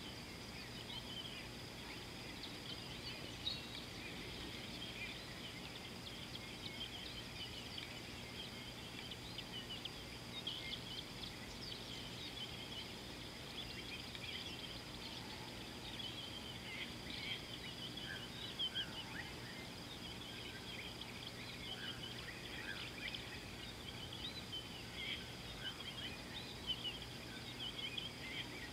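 Many small birds chirping and twittering without pause, a dense chorus of short high calls over a steady faint background hiss.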